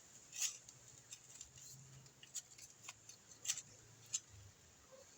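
Scattered faint crackles and sharp clicks of hands digging through soil and pulling at sweet potato vines to unearth the tubers.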